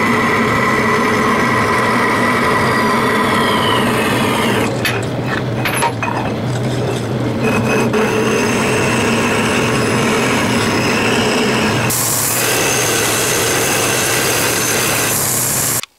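Bandsaw running and cutting through the sprue of a cast aluminum base. About twelve seconds in, it gives way to a belt sander grinding the aluminum casting's edge, which stops abruptly near the end.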